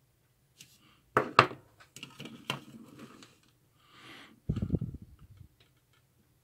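Clicks and knocks of a small plastic-cased circuit board being handled against the bench and tools, with a sharp double click about a second in, some light scraping, and a low thump near five seconds.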